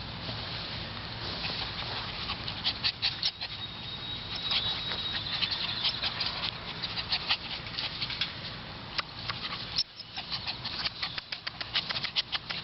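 Two Havanese puppies scuffling and playing on the ground, a steady stream of quick, irregular crackling clicks.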